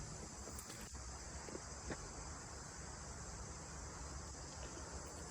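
Steady high-pitched chorus of insects, crickets or similar summer insects, in the woods, with a low rumble and a few faint ticks underneath.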